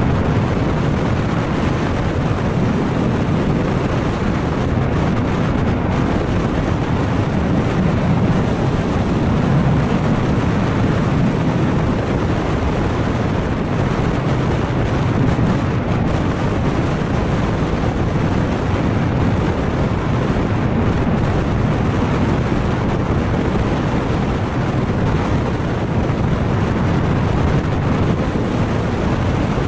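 Steady wind rush on the camera's microphone over the drone of a motor scooter cruising at about 60 km/h.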